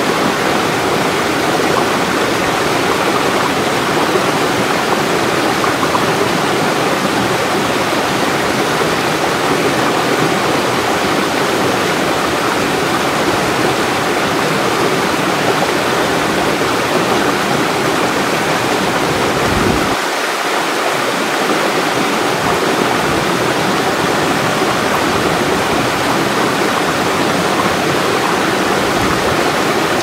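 Small stepped waterfall pouring over boulders into a rock pool: a steady, even rush of falling and splashing water.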